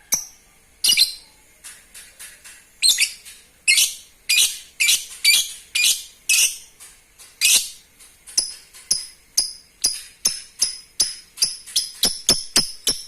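Lovebird giving a series of shrill, sharp chirps, one after another. The calls come about two a second at first and quicken to a faster, more even run near the end.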